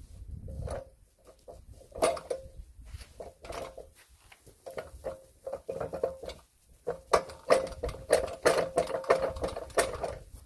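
A rigid steel pipe being fed through a Greenlee 1818 pipe bender: repeated metal clicks, knocks and scrapes with a ringing metallic tone, most frequent in the last three seconds.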